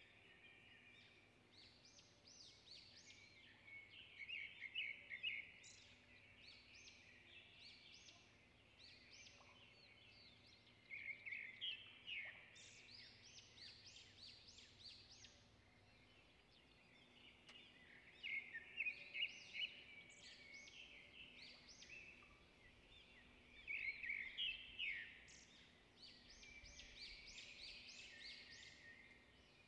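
Faint birdsong: many small birds chirping and twittering in quick high notes, with louder flurries every six or seven seconds.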